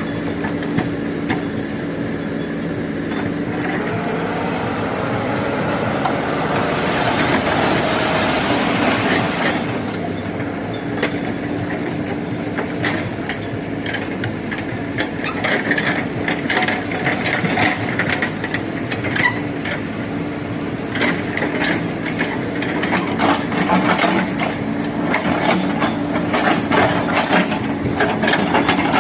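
Backhoe loader's diesel engine running steadily, rising in pitch for a few seconds near the start, with rapid metallic clicking and clanking from about halfway through.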